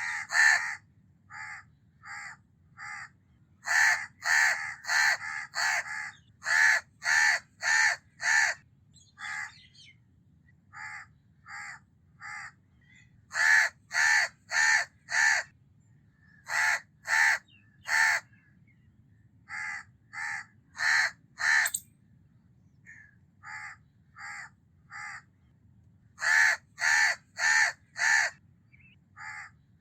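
House crow (Corvus splendens) cawing: short harsh caws in bouts of three to six, about two a second, some bouts loud and others fainter.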